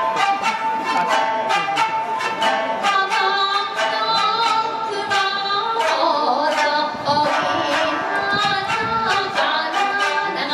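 A shamisen ensemble plucked together with bachi, a steady run of sharp, twangy strokes, with women singing jiuta in long, wavering held notes.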